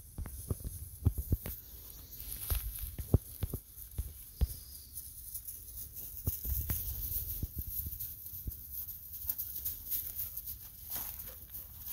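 Irregular soft thumps and rustles of dogs moving about on dry field stubble, thickest in the first five seconds, over a steady low rumble.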